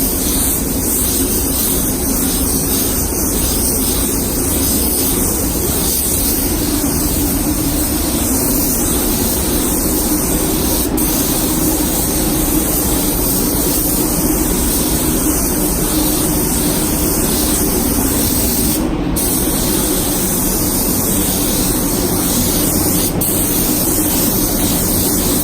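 Compressed-air spray gun hissing steadily as it sprays high-build primer onto car body panels, with one momentary dip in the hiss about three quarters of the way through.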